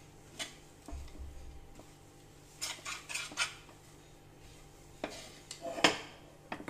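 A spoon stirring a thick coconut and jaggery filling in a pan, with scattered scrapes and knocks of metal against the pan and short pauses between strokes.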